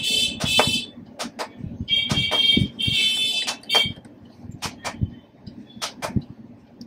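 Repeated sharp clicks of an Ajanta LED digital wall clock's push button being pressed to step the hour setting. In the first four seconds the clock gives several short, high electronic beeps.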